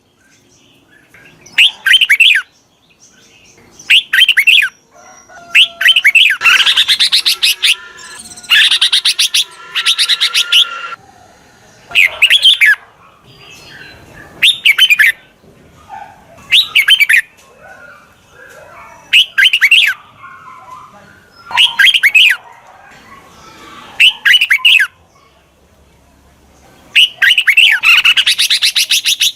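Red-whiskered bulbul decoy song: loud, short warbling phrases repeated about every two seconds. There are longer bouts of rapid chattering about a quarter of the way in and again near the end.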